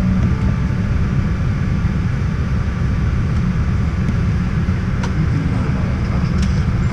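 Cabin noise of a Boeing 777-300 taxiing: a steady low rumble of the engines and rolling airframe, with a few faint clicks near the end.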